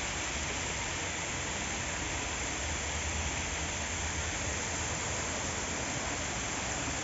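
Steady rush of water falling and splattering down an artificial rock waterfall, an even rain-like hiss with no breaks.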